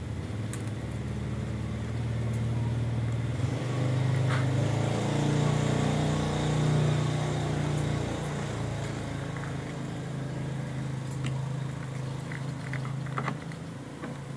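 A motor engine running steadily, its pitch and loudness rising a little around the middle before settling back, with a few light clicks over it.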